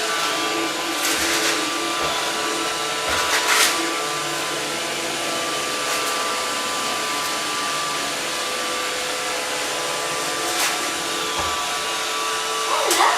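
Roomba robot vacuum running steadily, a whirring motor and brush noise with a few steady tones, and a couple of brief clunks about a second and three and a half seconds in.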